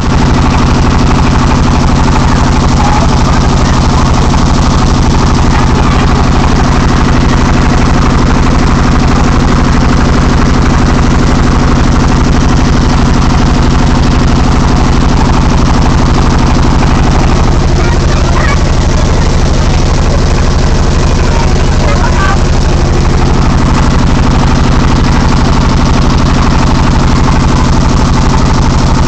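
Boat's inboard engine, a red stationary diesel mounted in the cabin, running at a steady speed with a loud, even, fast chugging.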